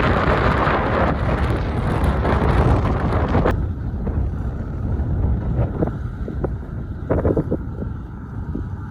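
Heavy earthmoving machinery running, with wind buffeting the microphone. A loud rushing noise stops abruptly about three and a half seconds in, leaving the low engine sound and a few knocks.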